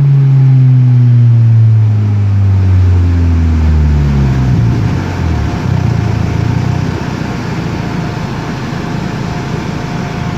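Seat Ibiza Cupra engine and exhaust with the revs falling steadily over about five seconds as the car runs on the overrun, then settling into a steady, lower rumble.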